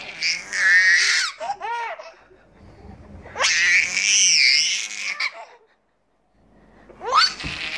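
Baby squealing and shrieking with laughter in high-pitched bursts while being lifted up into the air, breaking off briefly about three-quarters of the way through.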